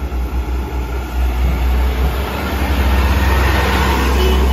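Side-loader garbage truck's diesel engine running close by, with noise from its hydraulic side arm growing louder in the last second or two as the truck lifts and empties a recycling wheelie bin.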